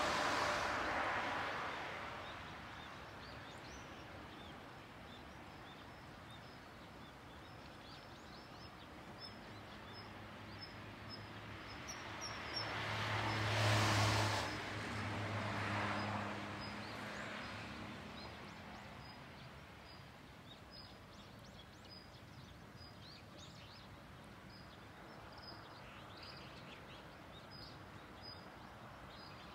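Outdoor ambience: a vehicle passes right at the start, and a louder one passes about 14 seconds in, its engine hum rising and fading away over a few seconds. Short high chirps repeat steadily throughout.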